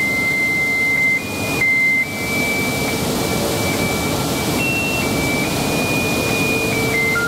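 A simple electronic tune of single pure, beep-like tones, one note at a time, each held about half a second to a second and a half, over a steady rushing noise.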